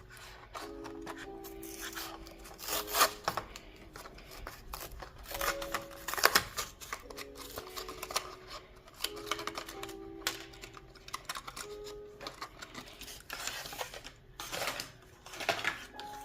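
Soft background music with held notes, over irregular clicks, rustles and crinkles of a toy car's packaging being opened and handled; the sharpest clicks come about 3 and 6 seconds in.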